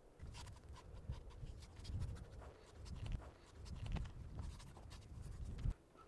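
Pen scratching rapidly across paper on a sketch board, a quick run of short drawing strokes, over a low rumble that swells and fades about once a second and stops abruptly shortly before the end.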